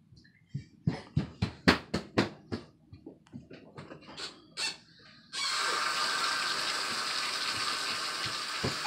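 Quick slapping footsteps on a tile floor, about four a second, then a few lighter knocks; about five seconds in, a bathtub tap is turned on and water runs steadily into the tub.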